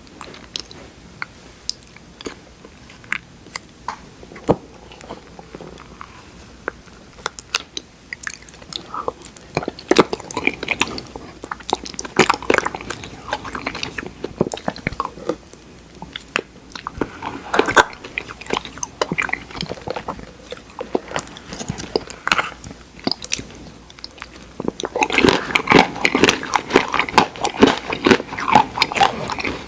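Close-miked eating of Oreo cookie ice cream: biting, chewing and crunching with many small sharp mouth clicks. It is sparse at first, gets busier about a third of the way in and is densest near the end.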